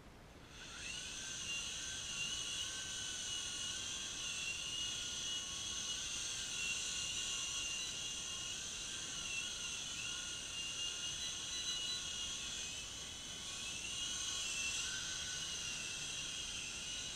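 High-pitched whine of a UDI U13A toy RC helicopter's electric motors and rotors, spinning up about half a second in and then holding in flight, the pitch wavering slightly as the throttle changes.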